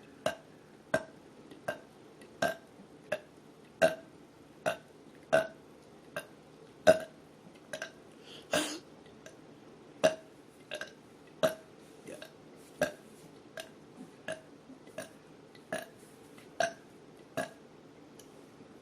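A woman burping over and over in short, sharp burps, about one every three-quarters of a second, with a longer burp about eight and a half seconds in.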